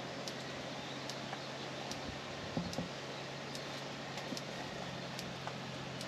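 Steady outdoor background noise with a low hum, faint high ticks repeating a little more than once a second, and two soft knocks about halfway through.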